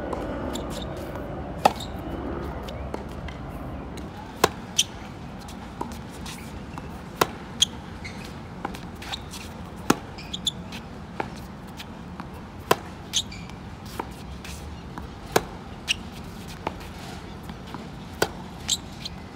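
Tennis rally on a hard court: sharp pops of balls struck by rackets and bouncing on the court, about one a second.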